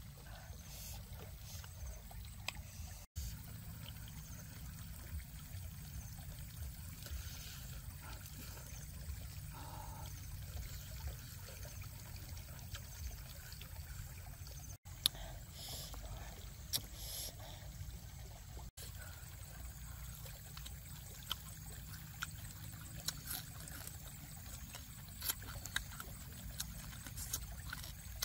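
Close-up eating sounds: scattered soft clicks of chewing and lip smacks while grilled fish is eaten with the fingers, over a low steady murmur of running creek water.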